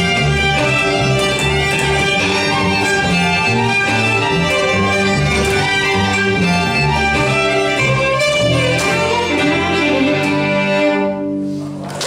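Two fiddles and an upright bass playing a folk tune together, with a steady walking bass underneath. Near the end the fiddles stop and the tune closes on a held final note.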